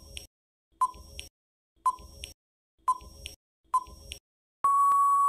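Quiz countdown-timer sound effect: five short sharp ticks about a second apart, each followed by a fainter click, then one steady beep lasting about a second near the end, signalling that time is up before the answer is given.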